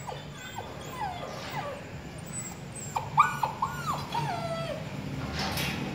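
Dogs whining over and over in short, high whimpers that mostly fall in pitch, with a quick run of rising-and-falling whines a little past halfway, as they wait to be fed.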